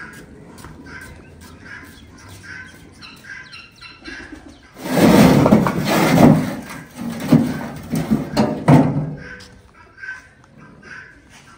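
Fired-clay bricks tipped from a steel wheelbarrow onto dirt, clattering and knocking together for about four seconds midway through, with a few sharp knocks near the end of that stretch. Small birds chirp repeatedly throughout.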